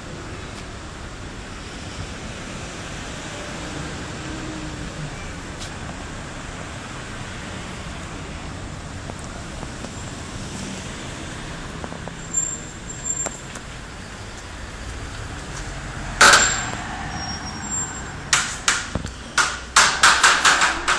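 Steady city traffic noise, with a few sharp clicks past the middle and a quick string of loud sharp knocks over the last few seconds.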